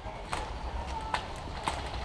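A string of short, sharp taps and knocks coming about twice a second, unevenly spaced, over a steady low background rumble.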